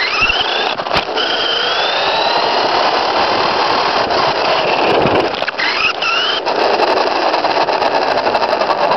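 XTM X-Cellerator electric RC truck's motor whining, rising in pitch several times as the truck speeds up, over a steady rushing noise, heard from a camera on the chassis.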